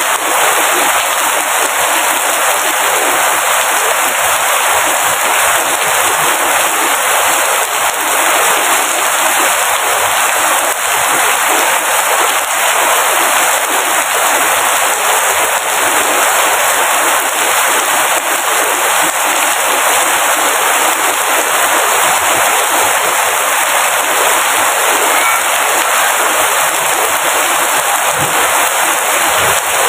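Steady heavy rain, a dense even patter of drops.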